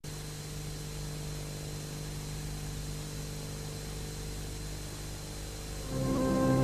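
Steady hiss with a low electrical hum. Near the end, orchestral music comes in, much louder.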